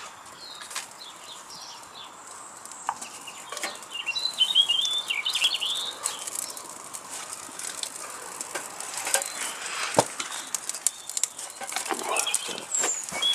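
A small bird singing a short, warbling phrase about four seconds in, among scattered sharp clicks and rustles, one louder knock about ten seconds in.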